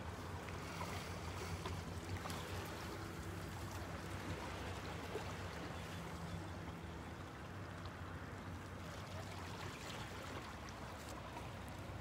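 Calm sea gently lapping and trickling over shoreline rocks, with small splashes. Under it runs a low, steady engine hum.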